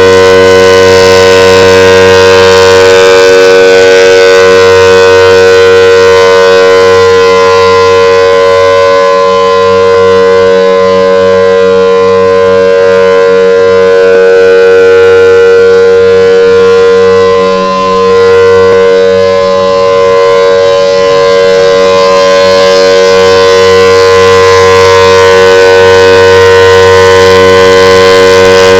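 Federal Signal Thunderbolt outdoor warning siren sounding a steady tone during a tornado siren test. It is very loud, with its loudness dipping briefly a few times.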